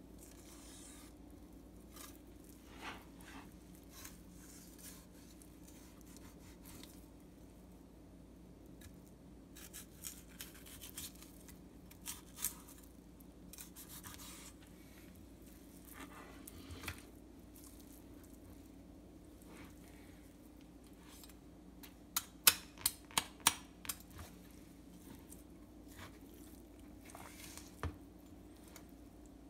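Kitchen knife filleting a morwong on a wooden cutting board: soft slicing and scraping as the blade works along the skin and rib bones. A quick run of sharp clicks comes about three quarters of the way through.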